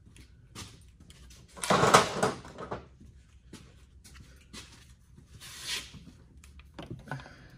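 Handling noises from tools and parts being picked up and moved: scattered light clicks and rustles, with a louder clatter lasting about a second some two seconds in and a shorter rustle near six seconds.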